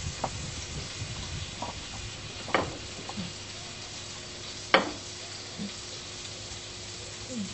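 Steady sizzling of food frying in a hot pan, with a few light clicks of a fork against a ceramic plate; the sharpest click comes near five seconds in.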